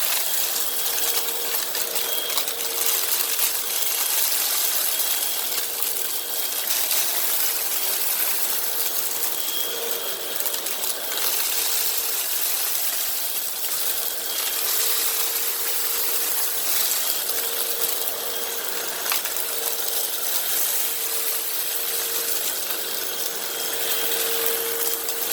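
Hoover WindTunnel High Capacity Pet upright vacuum running with a steady motor whine, sucking up a heavy load of dirt and debris, with scattered clicks and rattles as bits go through it.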